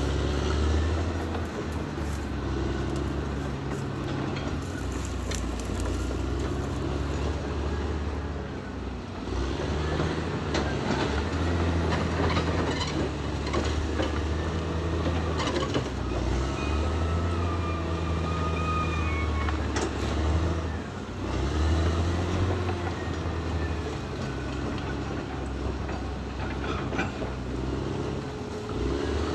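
Caterpillar D6R XL bulldozer working: its diesel engine runs steadily, the pitch rising and falling every few seconds as the load changes. Metal squeals and clanks come from the steel tracks, with the squealing strongest through the middle.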